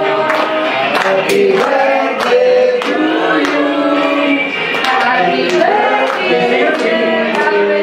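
A group of voices singing together, with hands clapping along in a steady beat of about two claps a second.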